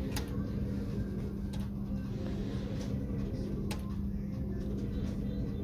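Merkur slot machine playing spins, with sharp clicks a second or two apart over a steady low hum.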